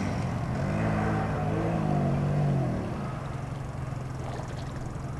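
ATV engine revving, its pitch rising and falling several times, then settling into a steady low hum about three seconds in.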